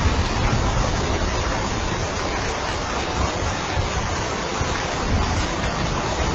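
Steady rain: an even, unbroken hiss with a low rumble beneath it.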